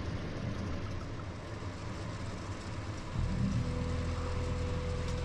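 Ford Focus engine and road noise heard from inside the cabin while driving. About three seconds in, the engine note changes and grows louder, and a steadier hum sets in.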